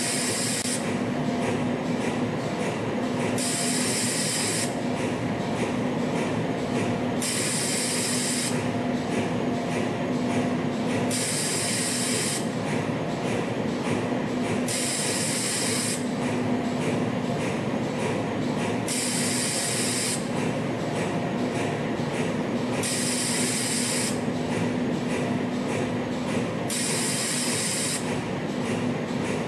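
YHM CF-303 CNC spring coiling machine running over a steady hum, with fine medical wire feeding through its coiling tools. It goes in a regular cycle: about a second of hiss, then a stretch of fast ticking, repeating about every four seconds.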